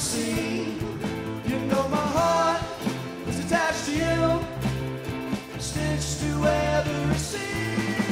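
A live indie-rock band playing: drum kit, electric guitars, bass guitar and strummed acoustic guitar, with sung vocal phrases over the mix.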